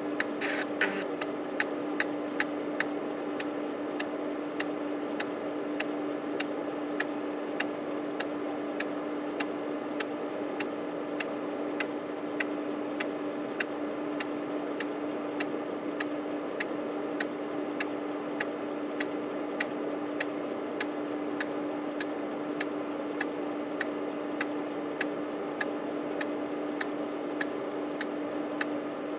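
3.5-inch floppy drive (Panasonic JU-257A135P, cover off) running its disk with a steady motor hum while the head's stepper motor clicks evenly, about two clicks a second, as the head moves across the disk one track at a time during a diagnostic seek or verify test.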